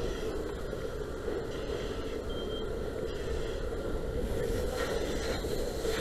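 Steady rushing spray of a firefighter's hose nozzle, the water jet striking burning debris, growing a little louder near the end.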